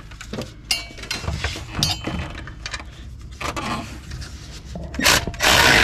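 Ratchet clicks and metal-on-metal clinks as a bolt on the alternator's adjusting bracket is tightened, ending with a loud burst of noise lasting about half a second.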